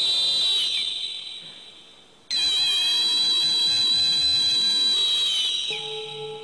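High-pitched whistle blown into a microphone in two long held notes, each sliding down in pitch as it fades; the second starts abruptly about two seconds in. Near the end a metal singing bowl begins to ring with a low steady hum.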